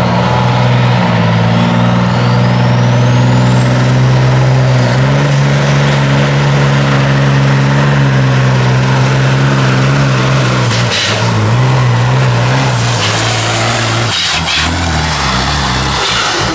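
Volvo pulling truck's diesel engine running flat out under load as it drags a weight-transfer sled, with a high whistle that rises over the first few seconds and then holds. Near the end the engine note breaks and falls away.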